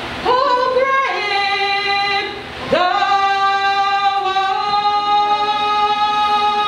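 A woman singing alone, holding two long, drawn-out notes and sliding up into each; the second is held about four seconds.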